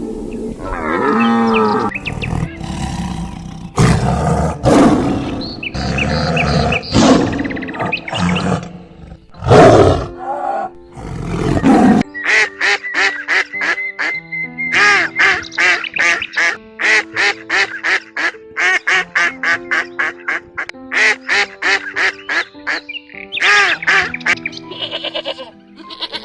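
Animal calls over background music: loud, irregular calls for about the first half, then a rapid run of short duck quacks set over the music.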